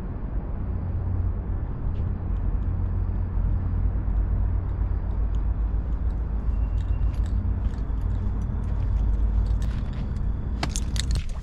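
Steady low outdoor rumble with a constant hum underneath, then a set of keys jangling and clicking near the end.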